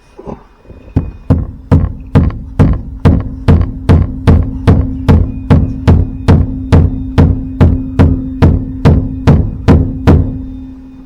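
Ball peen hammer striking metal in steady, evenly spaced blows, a little over two a second, about twenty in all, with a steady low hum under the later blows.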